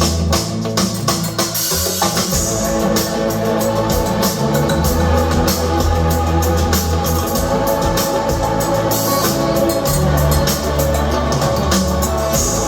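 Instrumental passage of a song with no vocals: sustained organ chords over held bass notes and a steady drum-kit beat.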